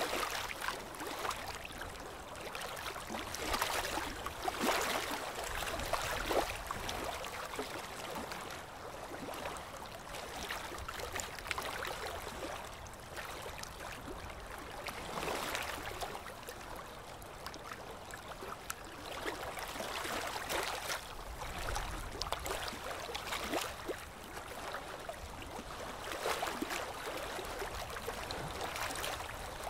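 Harbour water washing and splashing in uneven surges every few seconds.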